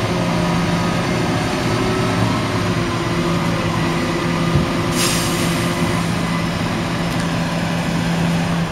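JCB Fastrac 4220 tractor's 6.6-litre six-cylinder diesel engine running steadily at low revs as the tractor moves slowly with a folded rotary tedder on its linkage. A short hiss about five seconds in.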